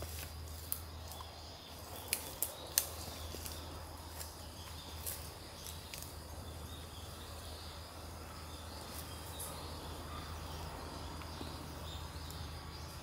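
Rural outdoor ambience: a steady low hum with a faint high insect-like drone, broken by a few sharp clicks or snaps in the first three seconds.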